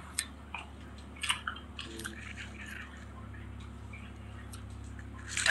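A few faint, sharp clicks in the first second and a half over a low steady hum.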